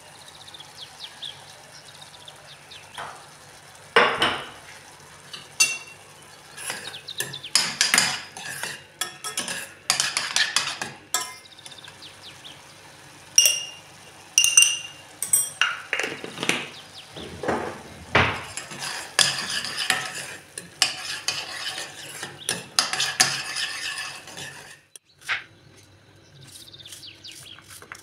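Metal spoon stirring and scraping tomato sauce in a stainless steel saucepan, with irregular clinks of the spoon against the pan, some of which ring briefly.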